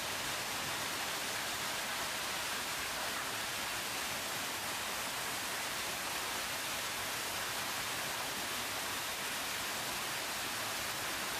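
A steady, even hiss with no distinct events in it.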